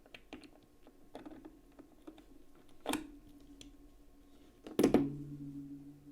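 Small metal clicks and taps of knife parts (titanium scales, liners, spring) being handled and fitted. There are two sharper metallic clinks, about three seconds in and, louder, about five seconds in; each leaves a brief ringing tone.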